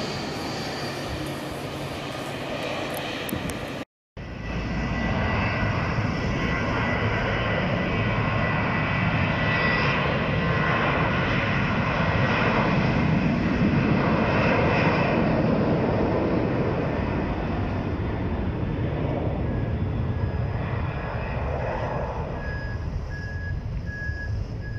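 Jet airliner engines running loud and steady, swelling to their loudest mid-way as a twin-jet moves along the runway, then easing off. The sound drops out briefly about four seconds in. A series of short high beeps, about two a second, sounds near the end.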